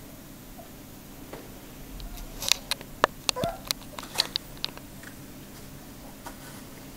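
Three-week-old border collie puppy scrabbling in a plastic whelping bed: a quick run of sharp taps and clicks lasting about two seconds, in the middle.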